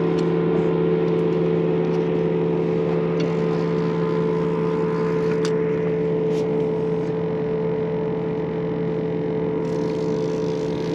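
Outboard motor idling with a steady, even hum, with a few faint clicks over it.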